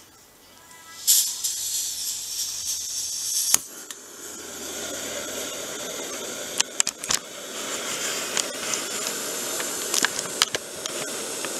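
Small screw-on backpacking stove on a propane-butane canister. Gas hisses from the opened valve, then about three and a half seconds in there is a sharp click as the burner lights. It then burns steadily with a rushing hiss under the pot, with a few scattered clicks and knocks.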